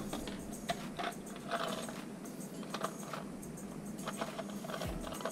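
Clear plastic case of small precision screwdrivers being handled and opened, with the metal tools clicking and rattling inside it: a sharp click at the start, then scattered light clicks.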